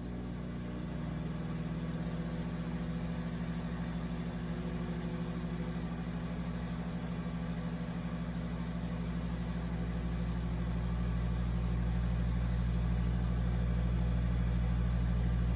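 Microwave oven running with a steady low electrical hum as it cooks a bowl of scrambled eggs, growing slightly louder toward the end.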